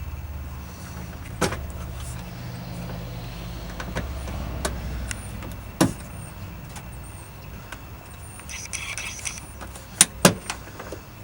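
Scattered sharp clicks and knocks of car door lock parts and tools being handled, the two loudest close together near the end, over a steady low rumble that fades out after about seven seconds.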